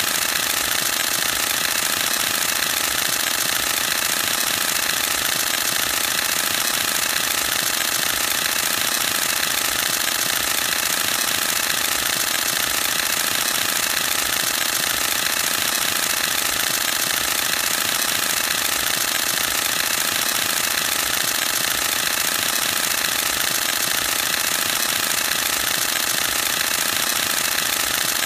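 Canon EOS-1D X Mark II DSLR firing a continuous high-speed burst: its mirror and shutter cycle as a fast, even, unbroken mechanical clatter.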